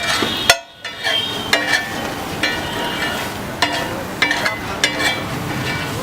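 A metal spatula clanking and scraping on a large flat iron tawa as food is stirred and fried. About a dozen sharp metallic clinks ring out over a steady sizzle.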